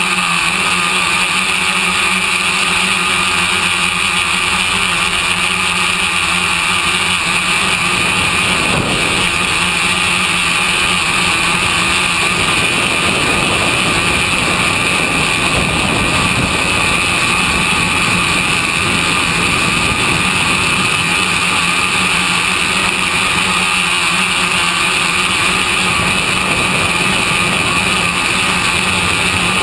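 Electric motors and propellers of a tricopter running steadily in flight, a constant high buzzing whine heard through its onboard camera's microphone.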